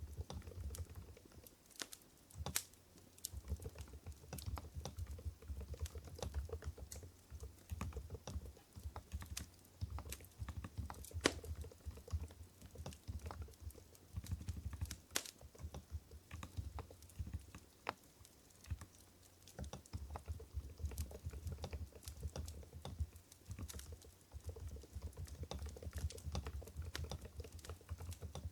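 Continuous typing on an Mstone Groove GV10 keyboard with low-noise Coral 45 g switches: a steady, dense stream of keystrokes, with a few sharper, louder strokes standing out now and then.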